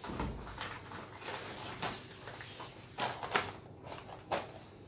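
Plastic milk sachets and grocery packaging rustling as they are handled and moved, with a few sharper crinkles and light knocks.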